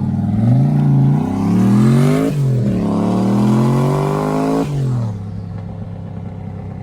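Car engine accelerating hard with its pitch climbing, an upshift about two seconds in, then climbing again before lifting off the throttle near the end and settling to a steady lower drone.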